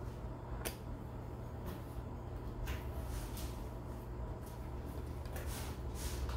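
Soft, brief scraping strokes of a painting tool spreading thick oil paint on canvas, a few in succession, over a steady low hum.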